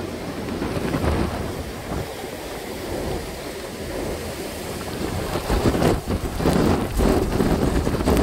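Hurricane wind gusting and buffeting the microphone, with rain and heavy surf breaking over a beach road. The gusts grow louder about five seconds in.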